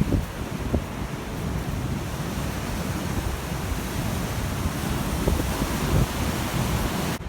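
Big storm-driven sea waves breaking and rushing up a sandy beach, with a steady hiss of surf and gusty wind buffeting the microphone.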